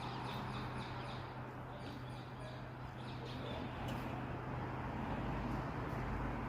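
Street ambience: a steady low rumble and hum of traffic, with faint, scattered bird chirps in the first few seconds.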